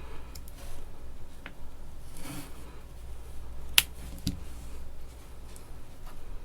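A few sharp metallic clicks and a brief rustle as a Leatherman Vista multi-tool is handled, the loudest click about four seconds in with a second one just after.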